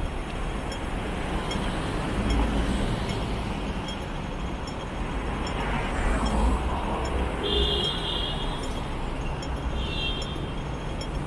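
Street traffic: a steady road rumble with vehicles passing, one going by louder about halfway through. Two short high-pitched squeals come near the end.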